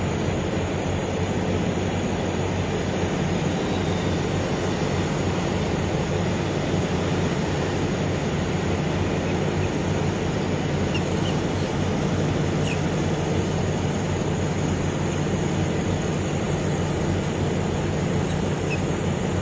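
Steady low rumble of vehicle noise, even in level throughout, with its weight in the low range.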